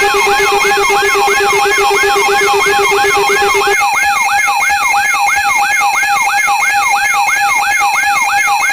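Electronic emergency alert sound: a fast wailing siren sweeping up and down about three times a second, over a steady alert tone. A lower pulsing tone beneath it drops out about four seconds in.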